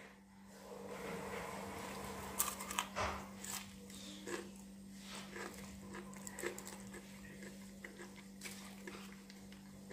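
Crisp breaded fried-chicken coating crackling and crunching as a hand breaks and handles a fried piece, with a cluster of sharp crackles about two and a half seconds in and scattered smaller crackles after. A steady low hum runs underneath.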